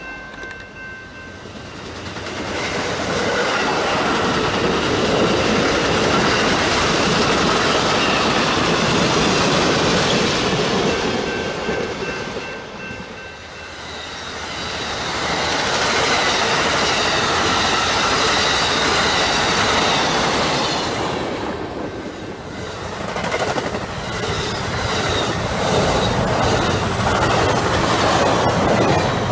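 Passenger trains passing close by: a rushing noise of wheels and car bodies with clickety-clack over the rail joints, swelling and fading in three passes. Around eleven to thirteen seconds in, a train horn's held multi-note chord sounds briefly.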